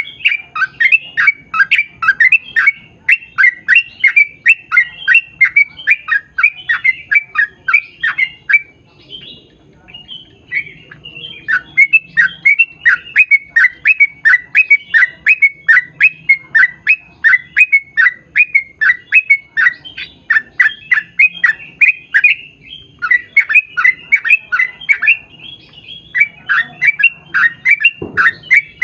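Yellow-vented bulbul (trucukan) singing long, rapid runs of loud, repeated falling notes, about two to three a second, broken by a few short pauses.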